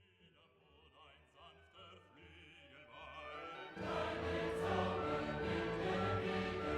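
Background music with a choir: it fades in quietly and swells to full level about four seconds in, with sustained choral notes.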